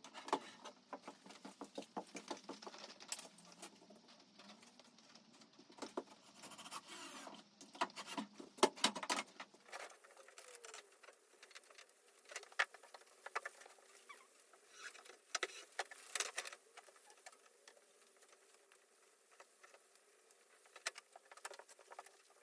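Heavy rain pattering on an insulated workshop roof: irregular, fairly faint taps, densest in the first half, over a low hum that stops about halfway through.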